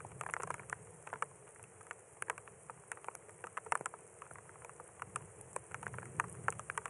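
Light rain in the desert: scattered raindrops landing as irregular sharp ticks, several a second, over a steady hiss.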